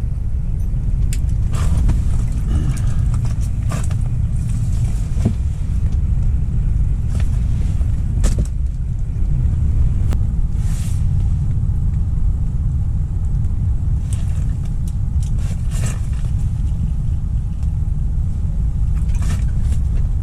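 Strong wind buffeting the microphone: a loud, steady low rumble, broken by scattered short clicks and knocks.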